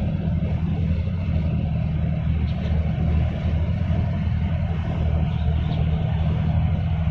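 Steady low diesel engine rumble from ships under way: the container ship and the pilot boat running fast alongside it.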